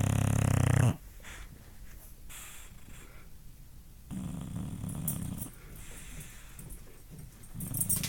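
English bulldog snoring in her sleep. A loud snore ends about a second in, a second snore comes about four seconds in, and a third starts near the end, with quieter breathing between.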